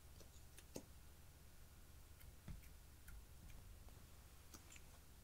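Faint, scattered clicks and light taps from a plastic makeup tube and its cap being handled, over quiet room tone.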